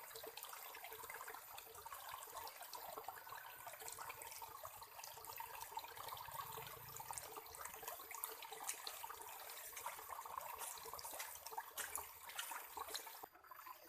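Steady trickling and pattering of water, with many small drop-like ticks, cut off abruptly near the end.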